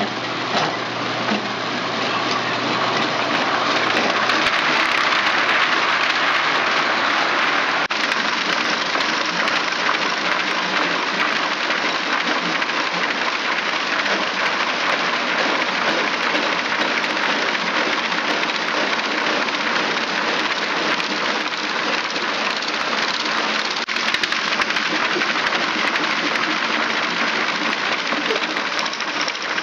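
Homemade gyro reaction drive machine running: electric motors, belts and a fast-spinning wheel make a steady, noisy whir as it rolls along on casters, with a low hum that fades about four seconds in.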